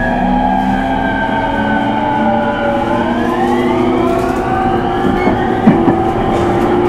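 E231-series train's VVVF traction inverter whining under the motor car as it accelerates, several tones gliding down in pitch for about three seconds and then climbing again: the falling sweep that gives this inverter its nickname 'falling' (墜落) inverter. A couple of sharp knocks come near the end.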